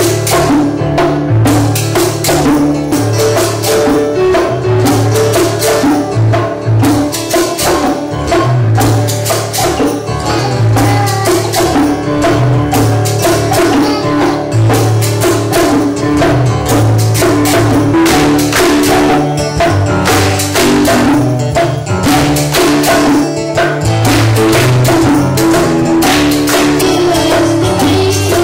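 Live acoustic band music: strummed acoustic guitar and keyboard over a steady beat of bongos and small hand percussion.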